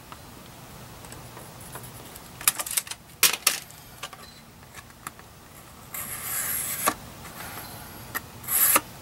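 Hands working a cardboard template: a quick cluster of sharp clicks and knocks about two and a half to three and a half seconds in, then the cardboard scraping and creasing for about a second, with a shorter, louder crease near the end as it is bent to shape.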